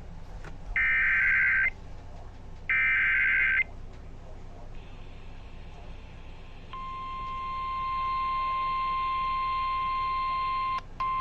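Emergency Alert System SAME header data bursts: two one-second bursts of warbling digital tone about two seconds apart. After a short pause, a steady single-pitched NOAA Weather Radio 1050 Hz warning alarm tone starts about seven seconds in, swells over about a second and holds, with a brief break near the end.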